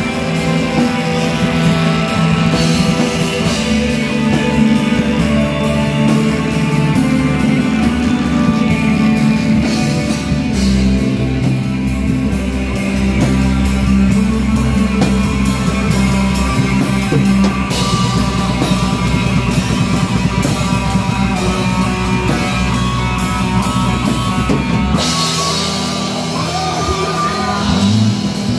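Heavy metal band playing live: distorted electric guitars, bass guitar and drum kit with a singer's vocals. About three seconds before the end the deep low end drops out.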